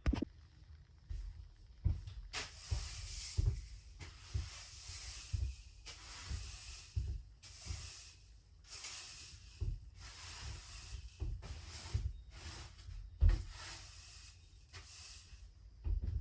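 Broom sweeping a floor in repeated brushing strokes, mixed with soft thumps.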